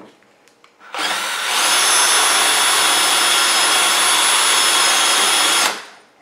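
Electric drill running steadily as its twist bit bores through an old hard drive, chewing into the metal case and platters. It starts about a second in, comes up to speed within half a second, and spins down near the end.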